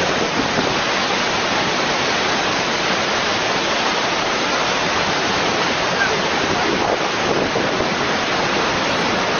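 Waterfall rushing, a steady, even wash of falling water that holds at the same level throughout.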